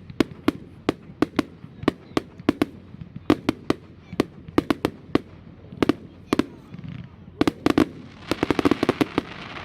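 Fireworks going off: a run of sharp bangs, two or three a second, that breaks into a rapid crackling flurry near the end.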